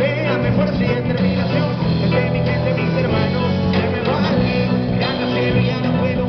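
Live rock band playing: a singer on a handheld microphone over electric guitars and a drum kit.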